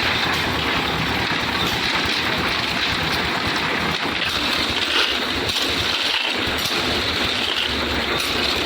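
Concrete mixer machine running steadily: engine noise with a rumbling low end and a few faint knocks.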